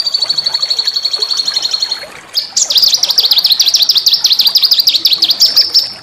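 Small songbird's loud, high-pitched song played as a masteran recording: a rapid, even trill for about two seconds, then a brief pause and a longer run of quick, sharp, down-slurred notes, about eight a second.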